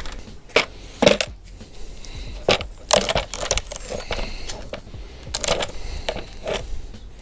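Irregular metallic clinks and knocks of hand tools and engine parts being handled and set down, a few sharp hits spread about a second apart.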